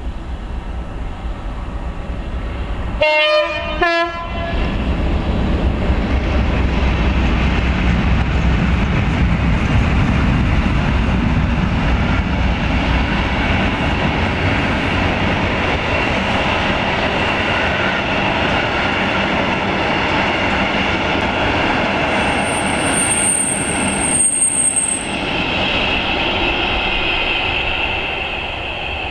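Two short horn blasts from a pair of Class 56 diesel locomotives about three seconds in. Their English Electric V16 engines then rumble past loudly, followed by the rolling and clickety-clack of loaded timber wagons. A thin high wheel squeal comes in for a few seconds near the end.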